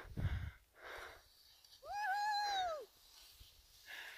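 A person's high-pitched whoop, one drawn-out "whooo" that rises and then falls, about two seconds in, with soft breaths before and after it.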